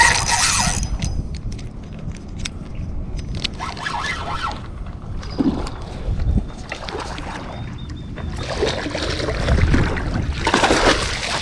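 Hooked carp splashing at the water's surface as it is played to the bank and netted, in a few bursts.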